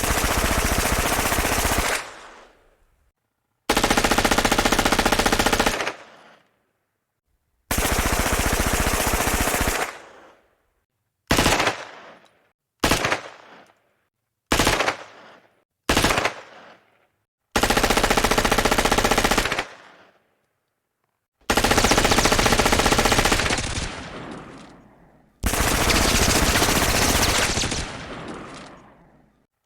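M16 rifle and MP5 submachine gun firing on full auto in repeated bursts, each with a short echoing tail. Most bursts last about two seconds, with four quick short bursts in the middle.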